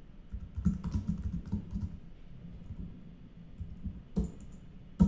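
Typing on a computer keyboard: a quick run of keystrokes in the first two seconds, then two single sharper clicks near the end, the last one the loudest.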